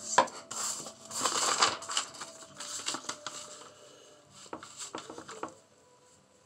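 Loose coloured sand hissing and rustling as a sand-painting board is tipped and shaken, in uneven bursts, with a sharp knock just after the start. Paper rustles briefly near the end as a sheet is laid over the picture.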